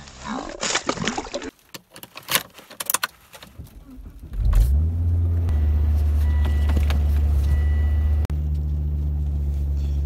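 A car engine starts about four seconds in and then idles steadily, heard from inside the cabin. Before it there are short clicks and handling noises.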